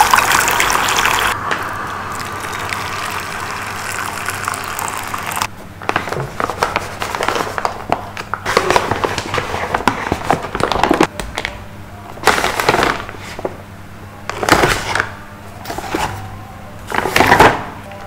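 Self-heating meal pack's plastic and foil packaging crinkling and rustling in irregular bursts as it is handled and opened, after a steady hiss in the first few seconds.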